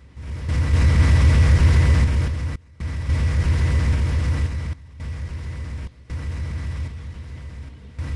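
A train's heavy engine running with a steady low throb and a faint high tone, cut off abruptly for a moment four times.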